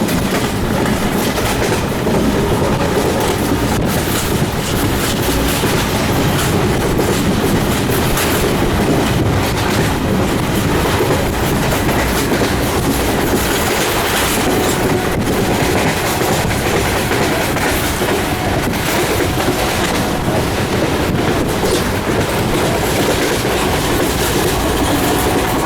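Moving train heard at an open window: steady loud rumble and rush of the wheels on the track, with a faint clickety-clack of the rail joints and wind.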